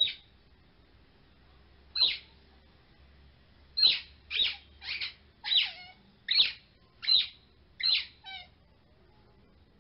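A series of about ten short, high-pitched chirps, irregularly spaced: one at the start, a pause of about two seconds, then a quick run of calls over the next six seconds.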